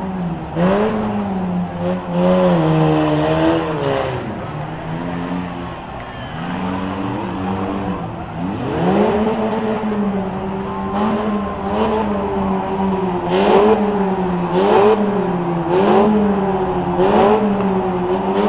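Small demolition-derby car engines running and revving, their pitch rising and falling again and again. In the second half comes a run of sharp bangs about once a second.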